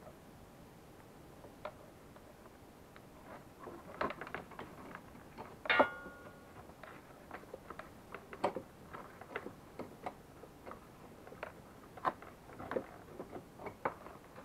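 Hands handling the ignition coil and its wiring inside the plastic front body of a 70cc Chinese kids' ATV: scattered light clicks and taps of small parts, with one sharper click that rings briefly about six seconds in.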